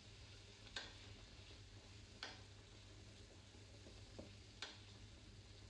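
Near silence with a faint steady hum, broken by three small clicks of something being handled at a kitchen counter.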